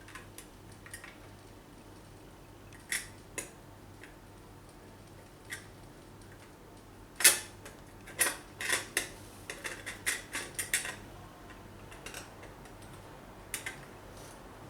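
Small metal parts clicking and clinking as they are handled: scattered sharp clicks, the loudest about seven seconds in, then a quick flurry of clinks for a few seconds.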